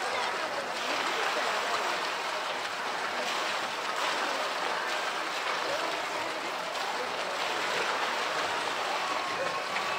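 Steady rush of running water, with faint voices of people in the background.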